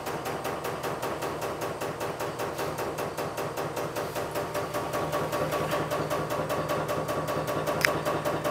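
Bandsaw running steadily, with a fast, even ticking and a sharp click near the end.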